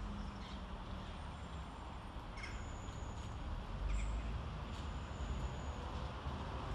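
Low, steady rumble of a diesel multi-purpose track vehicle pair approaching to pass through a station, growing slightly louder after about three and a half seconds, with a few short bird chirps.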